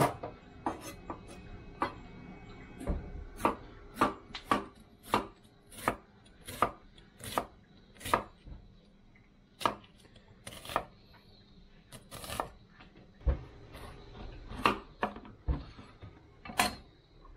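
Chef's knife chopping on a wooden cutting board: a regular run of sharp knocks, about one to two a second, as an onion is cut, then bell peppers near the end.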